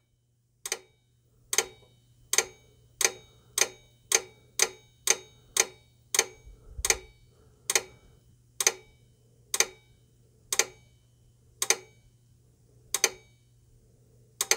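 Relay on the KITT scanner controller clicking again and again as the powered scanner circuit cycles. Its rate is being changed with the speed potentiometer: the clicks quicken to about two a second midway, then slow to roughly one a second or more near the end. A faint steady hum runs underneath.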